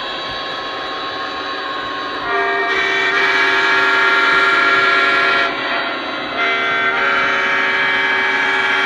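Lionel Legacy O-scale model diesel locomotive's sound system running its diesel engine sound, with the air horn blowing about two seconds in for about three seconds, stopping briefly, then sounding again from about six and a half seconds on.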